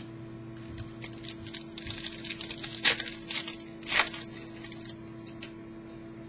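Trading cards being handled and slid off a stack: a run of light clicks and rustles, with two sharper snaps near the middle, over a steady electrical hum.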